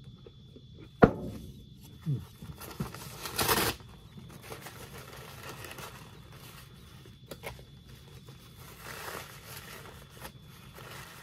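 A sheet of paper towel torn off the roll with a short rasping tear about three and a half seconds in, after a sharp knock about a second in and a few lighter knocks; softer rustling and crinkling of the paper follows as it is handled.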